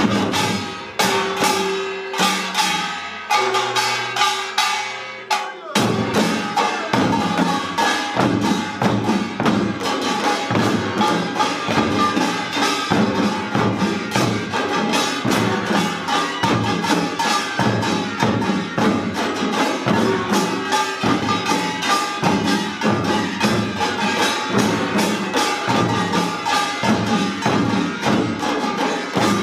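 Pungmul percussion ensemble of janggu hourglass drums, buk barrel drums, sogo hand drums and kkwaenggwari small gongs playing a pangut. It opens with a sparser passage under a few held tones, then from about six seconds in settles into a dense, fast, steady beat.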